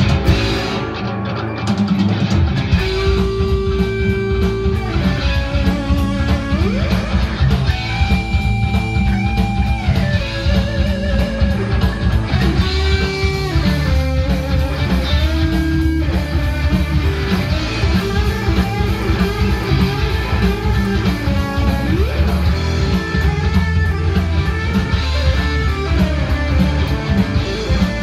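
Electric guitar playing a lead: held notes with vibrato and string bends. It is over a rock backing of bass and drums whose steady beat comes in about two seconds in.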